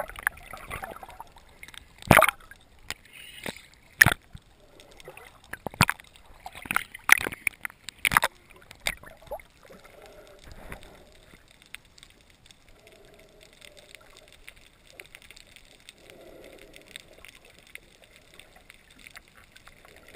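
Underwater sound picked up by a snorkeler's camera: a run of sharp knocks and water noise for the first eight seconds or so, then much quieter, with only faint low hums and gurgles.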